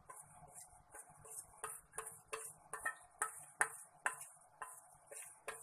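Short, irregular scrapes and clinks of a utensil against a stainless steel bowl, about two a second, as melted chocolate is scraped out of the bowl onto a cake.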